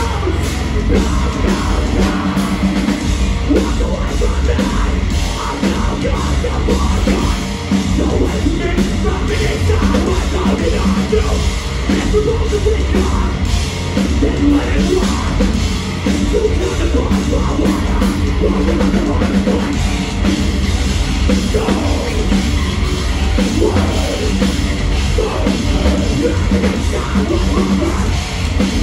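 Metalcore band playing live and loud: heavy distorted guitars and bass over pounding drums, with vocals.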